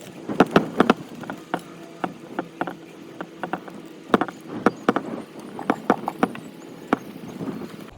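Irregular sharp knocks and clacks, loudest in two clusters about half a second in and about four seconds in, over a steady machine hum.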